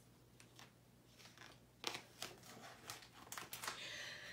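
Faint paper rustling and soft crackles as the pages of a hardcover picture book are turned, with a few short crackles from about two seconds in.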